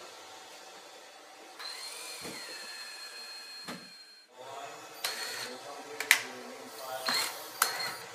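Cordless drill/driver running in several bursts: one steady whine of about two seconds, then a few shorter bursts, with sharp clicks in between.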